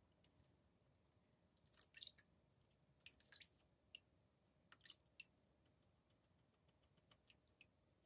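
Near silence: room tone with a few faint, scattered small clicks and taps.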